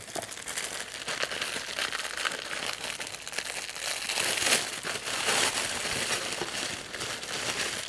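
Crinkly packaging rustling and crumpling continuously as a beanie is handled and unwrapped from it by hand.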